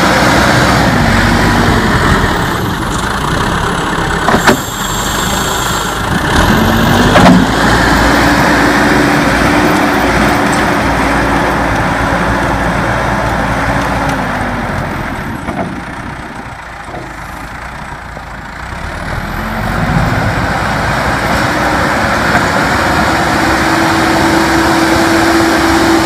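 Caterpillar backhoe loader's turbo diesel engine working hard as its front bucket pushes deep snow, the revs rising and falling with the load. It fades as the machine moves off around the middle and grows loud again as it comes back. Two sharp clunks come a few seconds in.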